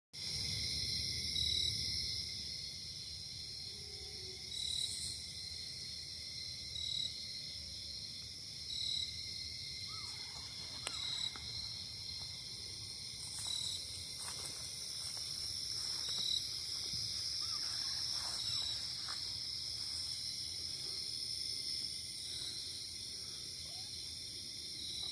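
A steady, high-pitched chorus of crickets and other insects, with a short high chirp repeating about every two seconds and a few faint, brief gliding calls from about halfway through.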